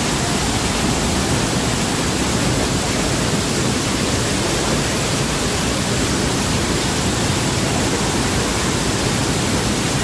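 Waterfall: a loud, unbroken rush of falling water, even and steady throughout.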